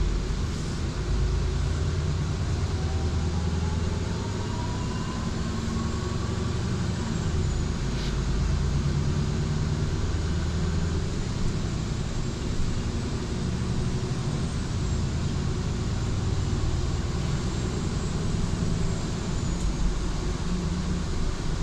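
Interior running noise of a Solaris Urbino 8.9 city bus under way: a steady low engine and drivetrain rumble with road noise. A whine rises in pitch a few seconds in as the bus picks up speed.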